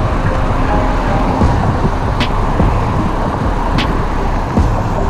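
Steady loud rumble of wind and road noise from a moving bicycle ride beside a busy road, with passing car traffic in it. Twice, a sharp click, about 2 and 4 seconds in.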